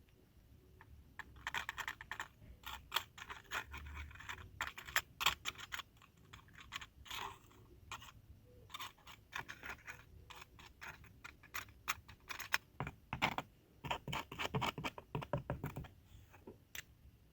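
Rapid, irregular clicks and scratches of hand work on hard plastic, coming in clusters with a short lull partway through.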